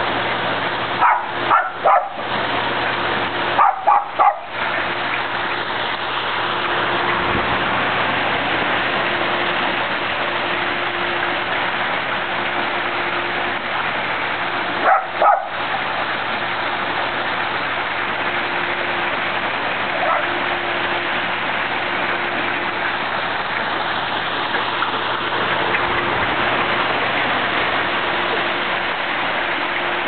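West Highland white terrier barking in quick clusters of sharp yips: three about a second in, three more around four seconds, and two near the middle. Underneath, a rock waterfall runs steadily, pouring water into a swimming pool.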